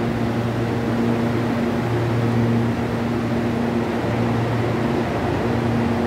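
Electric commuter train standing at the platform, its onboard equipment giving off a steady hum with a pitched drone that wavers slightly in strength.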